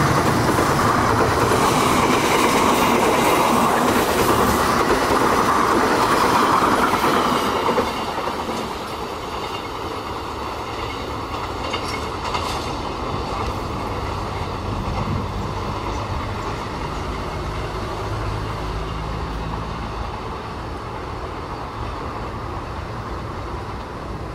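Passenger train coaches passing close at speed, the wheels clattering over the rails. About eight seconds in the sound drops to a quieter, steady rumble of a train running away down the line.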